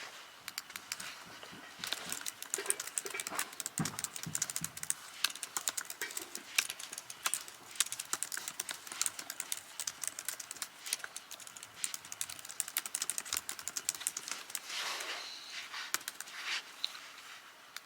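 Rapid, irregular small clicks and taps, with a soft hissing swell near the end.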